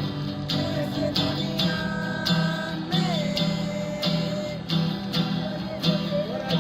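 Music led by a strummed guitar, with a steady rhythm of strokes about every half second under a gliding melody line.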